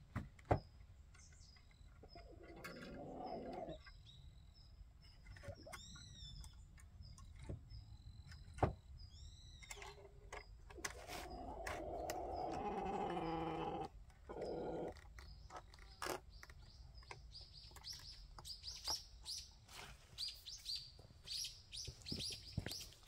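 Small birds chirping, short high chirps repeated through the clip and coming thicker near the end, with a few sharp knocks as the wooden door and wire of a chicken coop are handled.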